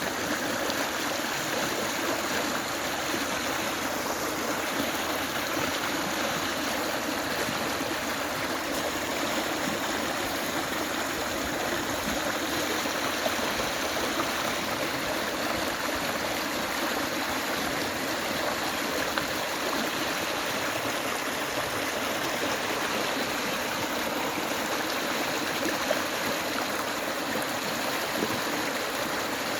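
River water flowing and splashing steadily over stones, a continuous even rush with gurgling.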